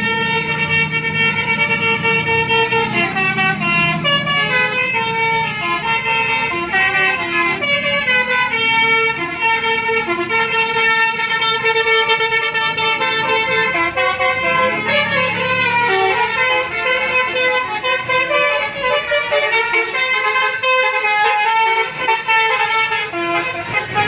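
Telolet horn of a double-decker bus playing a tune: a long run of multi-tone air-horn notes stepping up and down in pitch, over the low running of the bus engine.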